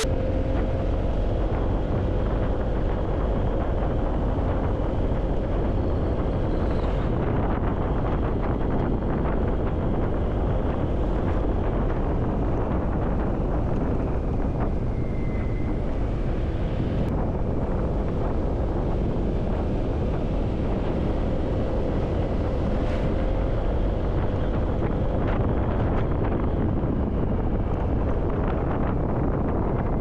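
Wind buffeting the microphone of a moving Honda PCX scooter, with the scooter's engine humming steadily underneath.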